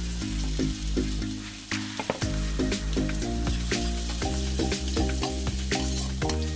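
Food frying in a hot pan: a steady sizzle with scattered crackles, under background music with a regular rhythm.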